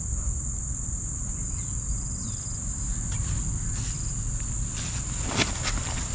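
Steady, high-pitched chorus of insects, with a few sharp clicks near the end.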